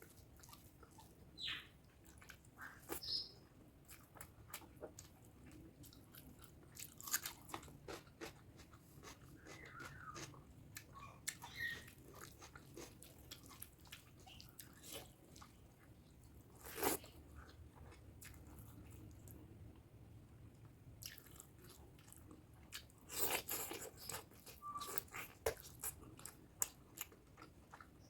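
Close-miked chewing and wet mouth smacks of someone eating spicy pork curry with rice, a scatter of short clicks, with louder bursts near the middle and toward the end.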